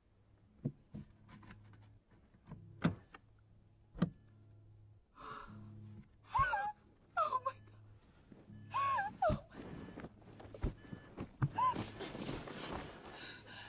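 A woman's short gasps and whimpers with several sharp thumps, over a low droning background.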